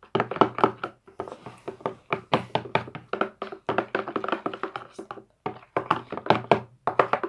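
Background music with a quick tapping beat over steady held notes.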